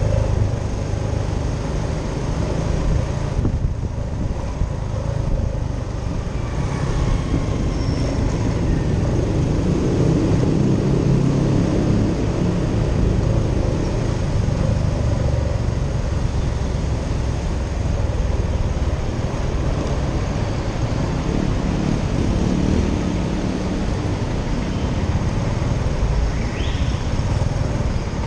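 Motorcycle engine running at a slow riding pace, heard from the rider's own bike, with city traffic around it.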